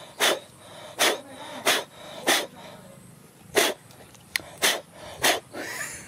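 A dog making short, breathy snorts through its nose, seven in a row a little over half a second apart, with a pause near the middle.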